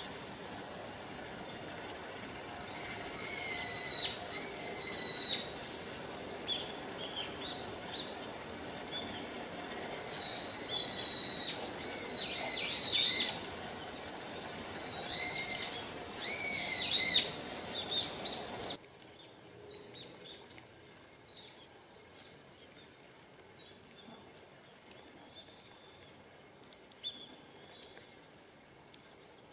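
Japanese tit calling repeatedly in short phrases over a steady background hiss. After a sudden cut about two-thirds of the way in, a flock of long-tailed tits gives faint, thin, high calls.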